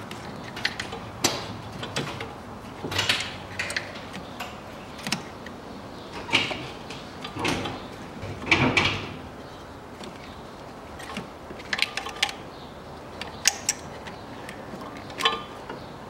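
Hand work fitting a rubber toothed timing belt onto an engine's sprockets: scattered light clicks and knocks of the belt and parts being handled, with a few longer scraping, rustling rubs in the middle.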